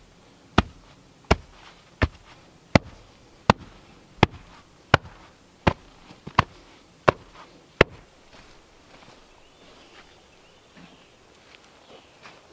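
Homemade wooden hand tamper pounding the clay floor of a footing hole to compact it before the concrete goes in. About eleven sharp, evenly spaced thuds, roughly three every two seconds, stopping about eight seconds in.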